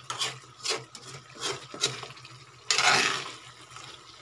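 Metal spatula stirring chicken and potatoes in sauce in a wok, scraping against the pan: several short scrapes, then a longer, louder scrape about three seconds in.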